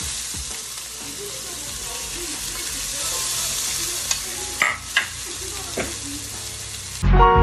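Diced onions and bell pepper sizzling steadily as they are sautéed in a little hot grease left from frying chicken, with a few sharp clicks about four to six seconds in. Music with a heavy beat comes in near the end.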